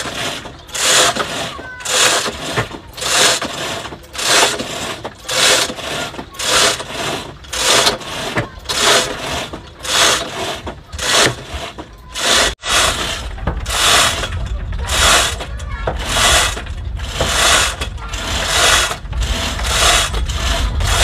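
Hand-operated lever chain hoists worked under load to haul a large wooden hull, giving a rhythmic metallic ratcheting of about two strokes a second. From about the middle, wind rumbles on the microphone underneath.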